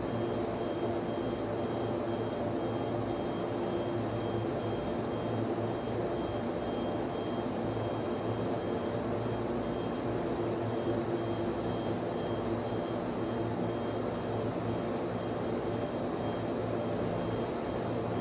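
Server room ambience: steady whir of server and network switch cooling fans, with a low hum and a thin high whine.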